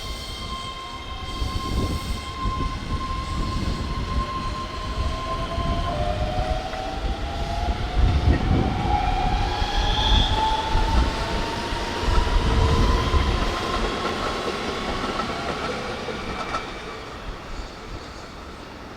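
Keihan 13000 series electric train pulling away, its motor whine rising steadily in pitch as it accelerates, with the rumble and clatter of the wheels on the rails, loudest in the middle and fading near the end.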